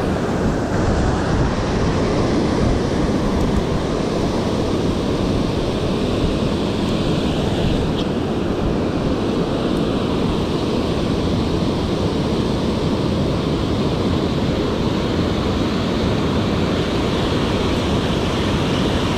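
Rushing river water running high, a loud steady noise.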